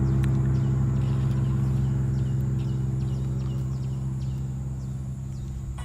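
An engine runs with a steady low hum that slowly fades. Over it come faint, repeated short falling chirps, like a small bird calling.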